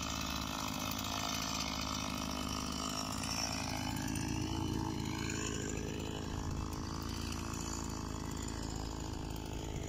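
Chainsaw running steadily as it cuts logs, its pitch dipping and rising around the middle.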